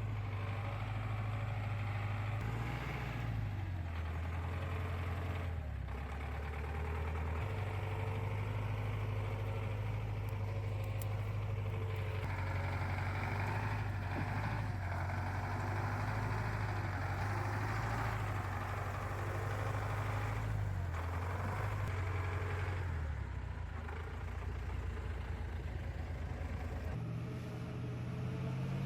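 ZIL-131 army truck's V8 engine running steadily under load, its pitch shifting in steps several times.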